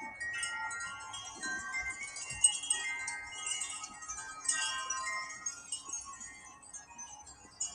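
Wind chimes ringing, many overlapping struck tones sounding again and again, thinning out and getting quieter over the last two seconds or so.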